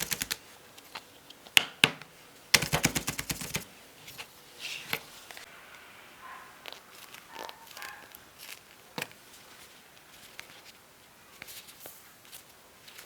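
Small plastic clicks from fidget toys being handled: a sharp click, then a quick rapid run of clicks about two and a half seconds in, followed by scattered quieter taps.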